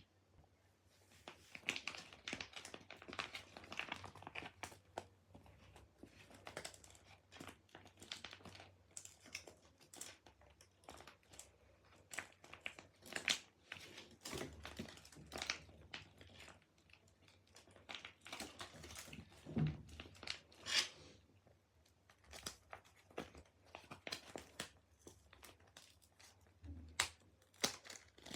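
Plastic and tape crinkling and rustling in irregular bursts with small clicks as a taba squishy, a squishy toy made of tape, is squeezed and handled.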